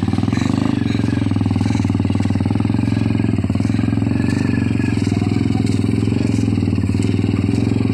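Small engine of a rang-rang, a homemade motorized cart, running steadily with an even, rapid pulsing as it hauls a load of feed sacks.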